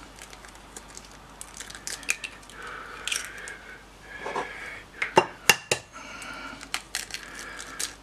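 Eggs being cracked on a glass mixing bowl: sharp taps of shell on glass, the loudest a close pair a little past halfway, with lighter clicks and the crackle of shell being pulled apart.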